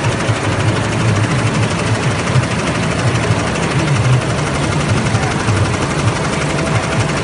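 Yuemei multi-needle cap embroidery machine stitching at speed: a rapid, steady mechanical clatter of the needle bar.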